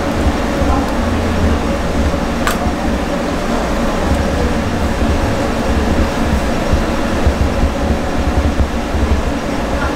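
Steady low rumble and hum of kitchen machinery, with a single sharp click about two and a half seconds in.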